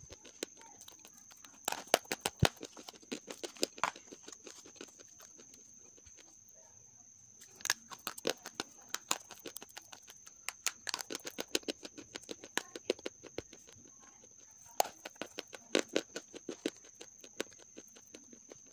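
Half-roasted grey clay chunks crushed between the fingers, giving quick sharp crisp crunches in three bouts with short pauses between. A faint steady high-pitched whine sits underneath.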